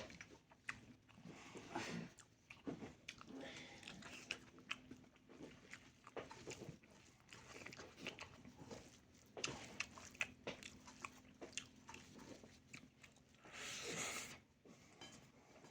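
A person eating with close-miked mouth sounds: biting and chewing food with many small irregular crunching clicks. Near the end there is a brief, louder rush of noise.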